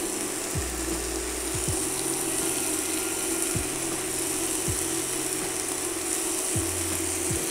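Chopped vegetables and mushrooms sizzling softly in a pot over a steady buzzing hum, with a few faint ticks.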